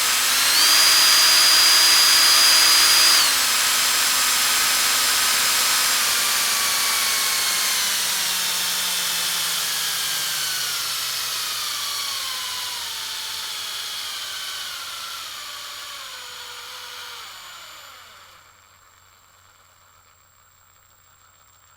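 Power drill motor whining at high speed with a brief dip, dropping to a lower speed about three seconds in, then a long, slowly falling whine as it winds down. It fades out well before the end, leaving only a faint steady hum.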